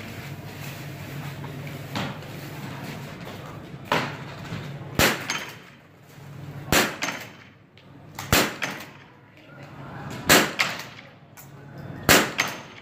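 Biathlon small-bore rifle fired five times from the standing position, one shot every 1.5 to 2 seconds, with a couple of fainter knocks before the first shot.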